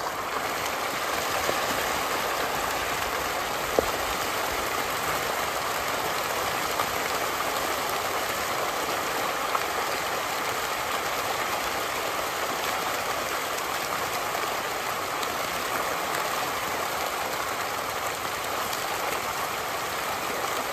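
A dense shoal of farmed pond fish splashing and thrashing at the surface while feeding on thrown feed, a steady rain-like patter of water, with a few sharp ticks, the clearest about four seconds in.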